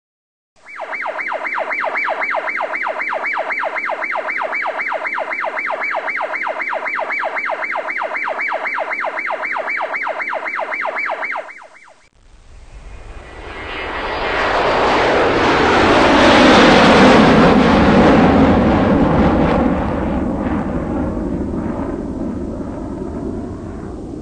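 A rapidly pulsing, siren-like electronic tone for about eleven seconds, which stops abruptly. Then a JCB 3DX backhoe loader's diesel engine works under load with a loud rushing noise over a low rumble; the rush swells for a few seconds, then slowly fades.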